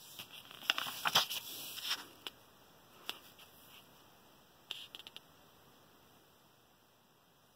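Paper pages of a softcover workbook being turned by hand, rustling and flapping in a burst over the first two seconds, with a single crisp rustle a little after three seconds and a brief flutter near five seconds.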